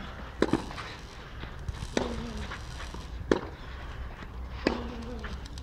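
Tennis ball struck by racquets in a baseline rally: four sharp hits, about one every second and a third, the first followed at once by a second knock.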